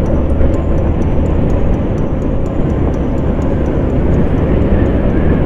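Steady wind rush on the microphone over a Hero Xtreme 160R motorcycle's single-cylinder engine, riding at road speed.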